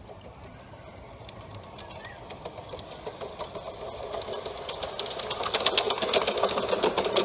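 Model train approaching, its wheels clicking rapidly over the rail joints above a running hum, growing steadily louder.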